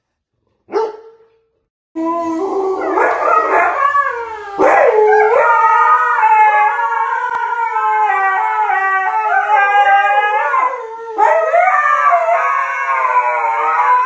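A short dog bark, then two Siberian huskies howling together from about two seconds in, their overlapping voices wavering up and down in pitch. The howls break off briefly near 11 seconds and start again.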